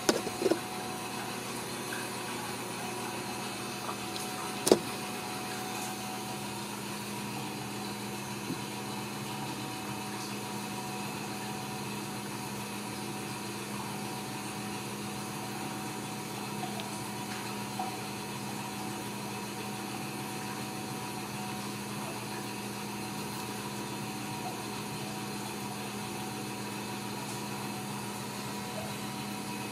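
A steady machine hum, with a few clicks at the start and one sharp tap about five seconds in.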